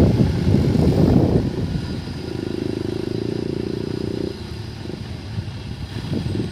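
Diesel engine of a JCB 3CX backhoe loader running, with rough rumbling for the first second or so, then a steady hum from about two seconds in that stops a little after four seconds.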